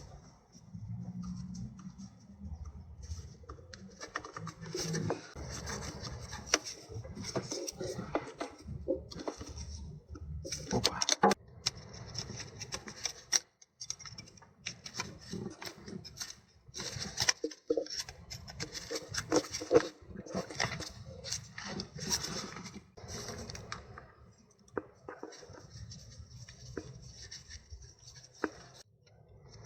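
Hands working on small metal car parts and hand tools: irregular clicks, taps, scrapes and rubbing, with sharper clinks about a third of the way in and again past the middle.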